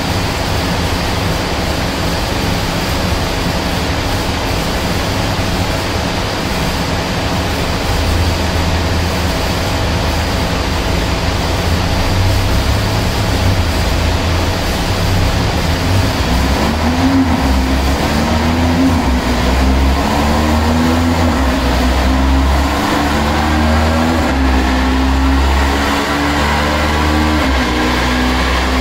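A car engine running under a steady rushing noise. From about halfway in, its revs rise and fall in a few swells, then hold at steadier pitches.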